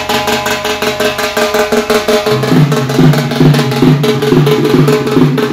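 Double-headed barrel drum played in a fast, steady rhythm, with heavier low strokes coming in about halfway through.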